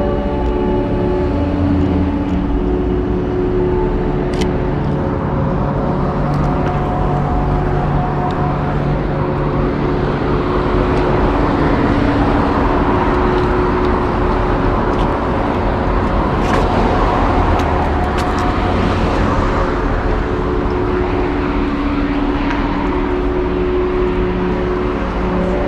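City street traffic: cars passing, swelling for several seconds near the middle, under steady held tones of background music.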